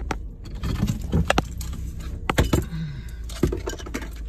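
Keys jingling with a string of sharp clicks and knocks from small things being handled inside a stopped car, over a low steady rumble.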